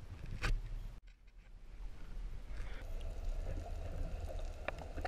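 A sharp knock about half a second in, then from about a second in a muffled, low rumbling wash of seawater heard from underwater, as the dropped fishing rod with its camera sinks.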